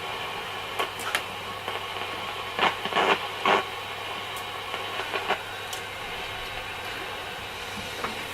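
Selena B210 transistor radio hissing with static from its loudspeaker, with a faint steady hum, while being tuned off-station. Several sharp clicks and knocks of handling the set cut through, the loudest a quick run of them about three seconds in.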